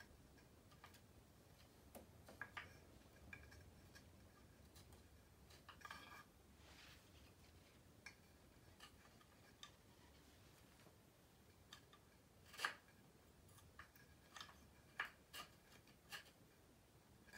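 Faint, scattered clicks and taps of small wooden Montessori colour tablets knocking against each other and their wooden box as they are lifted out one at a time. The loudest click comes about twelve seconds in.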